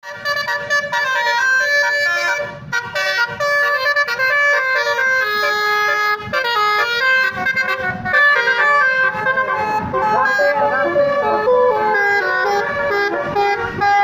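Indonesian bus basuri horn playing a fast melody of short stepped notes, several tones sounding together, over the rumble of the bus and passing traffic.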